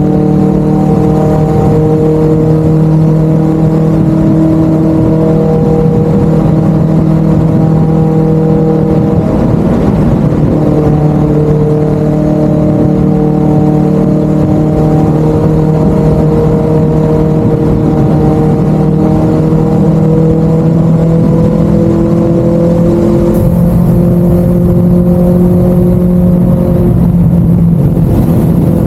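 A 600 cc inline-four motorcycle with an Akrapovic aftermarket exhaust, running at steady revs in a tunnel: a loud, even exhaust drone. Its pitch holds nearly level, with brief changes about ten and twenty-two seconds in.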